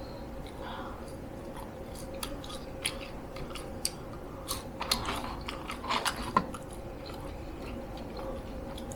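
Close-up chewing and biting of fast food, with small wet mouth clicks and smacks that come thicker and louder about five to six and a half seconds in.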